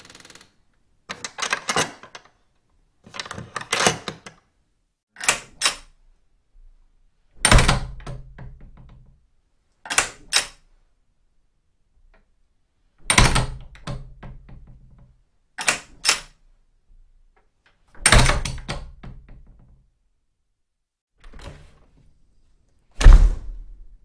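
Farm door latch and door worked over and over, with silence between each go: rattling clicks, quick double clicks of the metal latch, and heavy shuts that thud and ring on briefly. The heaviest shut comes near the end.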